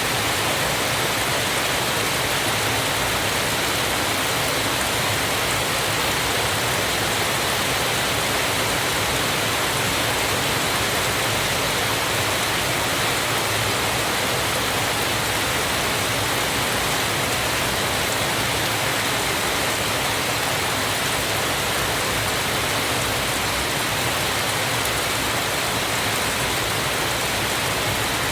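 Waterfall: water falling and splashing, a steady, unchanging rush of noise.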